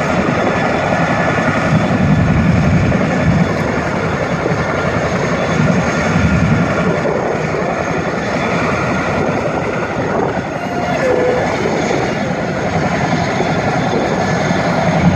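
CH-47 Chinook helicopters running on the ground: a steady twin-turboshaft whine over the low throb of the turning tandem rotors, which swells and fades every few seconds.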